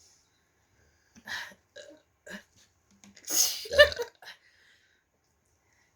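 A person burping after gulping fizzy Coke: three short little burps between about one and two and a half seconds in, then a longer, louder burp a little after three seconds.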